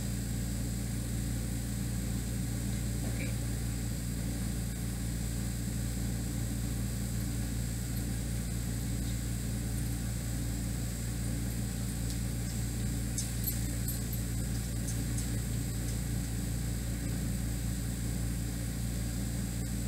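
Steady low machine hum of the room's background noise, unchanging throughout, with a few faint ticks about two-thirds of the way through.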